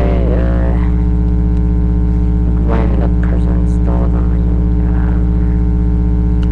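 Loud, steady electrical hum with many evenly spaced overtones, picked up by a webcam's microphone.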